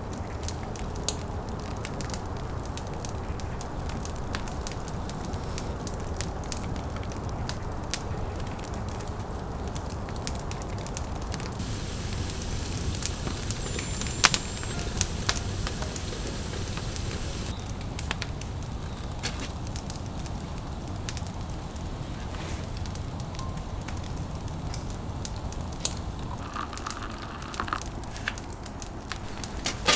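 Wood campfire burning, with many sharp crackles and pops over a steady low rush of flame. For a few seconds midway a higher hiss joins in.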